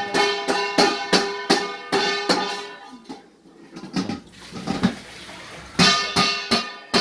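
A quick series of sharp, ringing pitched notes, like plucked or struck strings, about three a second, with a couple of brief gaps.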